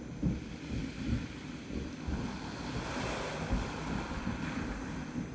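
Small waves washing over a pebble beach, with wind gusting against the microphone.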